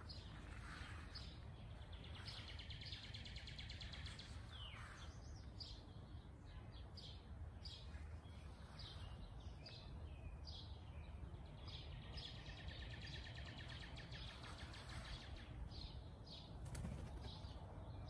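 Several birds singing and chirping: many short high chirps and a couple of rapid trills, over a steady low rumble.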